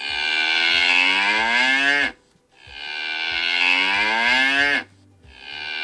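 A cow mooing: three long moos, each rising slightly in pitch, the third starting near the end.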